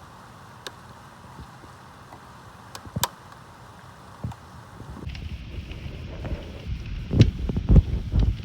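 Steady rain hiss with scattered sharp drip taps. About five seconds in the sound changes abruptly to a louder low rumble with irregular thumps.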